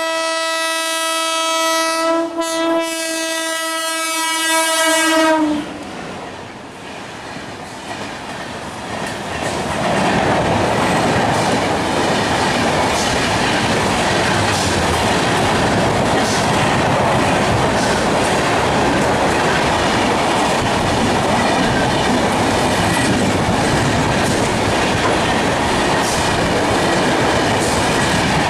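Indian Railways electric locomotive sounding its air horn in one long blast of about five seconds, with a short dip about two seconds in. The train's coaches then pass close by in a loud, steady rush with the clatter of wheels over the rail joints.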